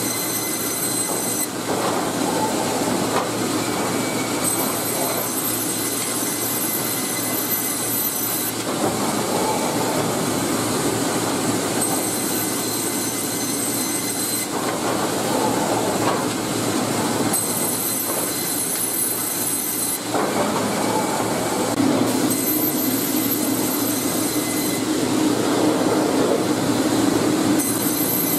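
Automated sawmill log-processing line running: a steady clatter and rumble of machinery, with a high whine that cuts in and out every three or four seconds.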